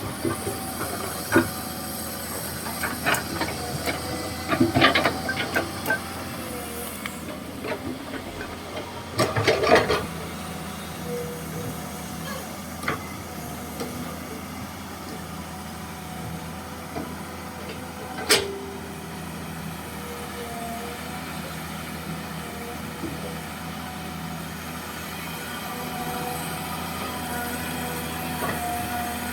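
Komatsu PC200-6 hydraulic excavator's six-cylinder diesel engine running steadily under working load, with tones that shift in pitch now and then. Several metallic clanks and knocks, a cluster of them about a third of the way in and one sharp clank past the middle.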